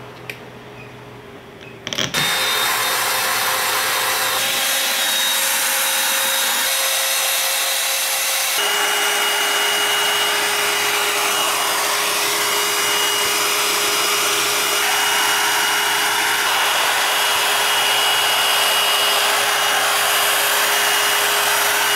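Electric hair dryer switched on about two seconds in, running steadily with a high whine as it blows on a Siberian husky's damp coat to dry it. The whine shifts in pitch about a third of the way through as the dryer changes setting or position.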